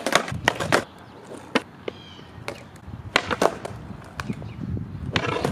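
Skateboards on asphalt: the tail popping and the board clacking back down onto the pavement during trick attempts, a quick run of sharp clacks at the start, a few more in the middle and a cluster near the end.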